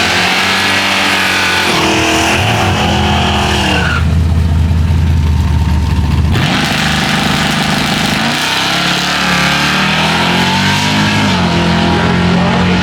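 Drag car engine running at the strip, its pitch rising and falling with revs. There is a deep, steady drone for a couple of seconds around the middle.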